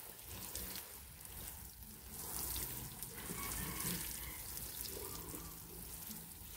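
Water sprinkling from a watering can's rose onto potted plants and soil, a steady hiss of falling drops.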